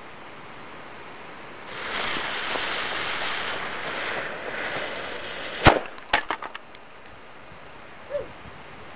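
An M95 firecracker's lit fuse hisses for about three and a half seconds, then the firecracker goes off with one sharp bang, followed at once by a few smaller cracks.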